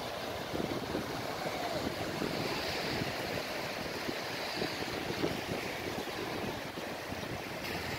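Choppy sea water washing and small waves breaking in the shallows, with wind buffeting the microphone in short low thumps.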